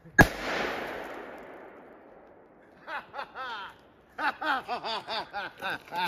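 A small plastic soda bottle loaded with aluminium foil bursts with one sharp bang from built-up gas pressure, the bang echoing and fading over about two seconds. From about three seconds in, a man's voice laughs in short bursts.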